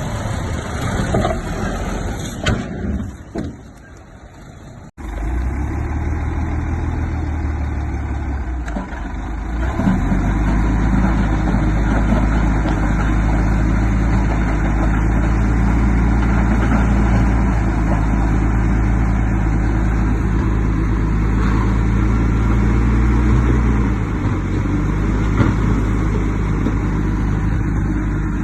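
Diesel engines of heavy earthmoving machinery running. An abrupt cut comes about five seconds in, then a steady, louder low engine note holds from about ten seconds and eases back near the end.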